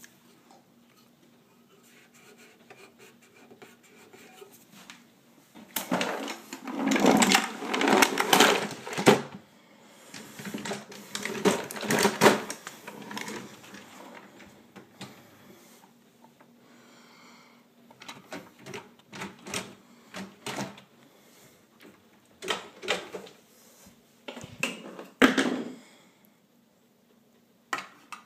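Wooden cabinet drawer being pulled open and pushed shut, knocking and clattering, with the jars and bottles inside rattling. Near the end it is tugged against the plastic latch of a child-safety magnetic drawer lock. The noise comes in several bursts of knocks with quieter stretches between.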